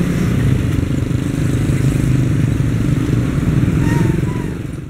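Motorcycle engines and road traffic running close by, a steady low engine hum that fades out near the end.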